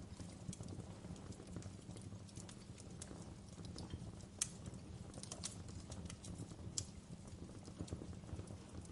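Wood fire crackling in a fireplace: a steady low rumble of the burning with scattered sharp pops and snaps, the two loudest a little under halfway and about three-quarters of the way through.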